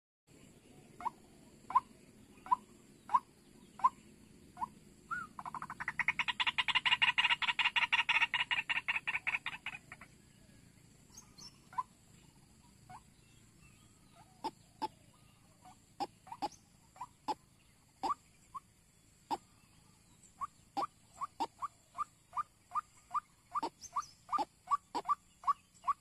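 White-breasted waterhen calling. A few short, evenly spaced notes lead into a loud, fast rattling run of about four seconds, then single notes come, sparse at first and faster and faster near the end.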